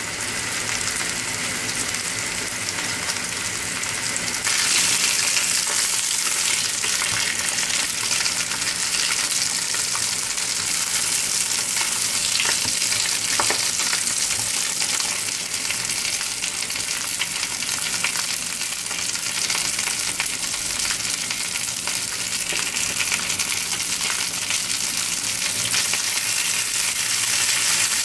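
Mackerel fillets sizzling as they fry in oil in a parchment-lined frying pan, a steady hiss that grows louder about four seconds in. One light click about halfway through.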